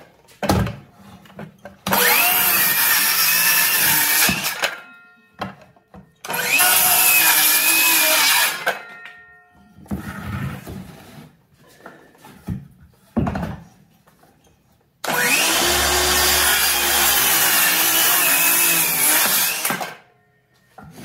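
Cordless DeWalt circular saw running three times, cutting through 2x4 lumber: each run starts with a quick rise in motor whine that then holds steady through the cut, and the third run lasts about five seconds. Short knocks come between the cuts.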